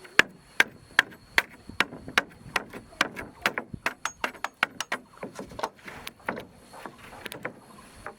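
Hammer striking wood, a run of sharp blows about two and a half a second that turns quicker and more irregular after about two seconds, as in nailing wooden floor planks.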